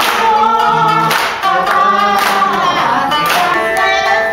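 Several voices singing a traditional Japanese song in long, wavering notes, with the audience clapping along on the beat about once a second.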